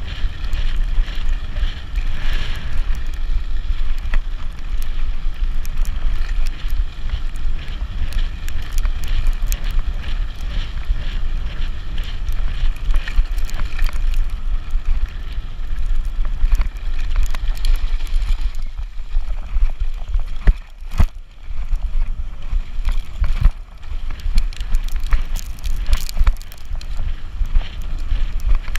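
Wind buffeting the microphone of a fast-moving e-bike on a rough dirt trail, with the bike rattling and knocking over bumps and a steady whine underneath. The rumble eases for a few seconds past the middle, and several sharp knocks stand out around then.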